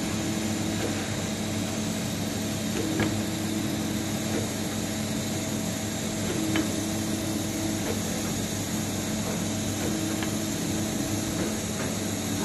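Hydraulic power unit running steadily while driving a swing clamp cylinder through repeated clamp and unclamp cycles. Every few seconds the pump's tone changes for about a second as the load shifts, and a sharp click marks each switch.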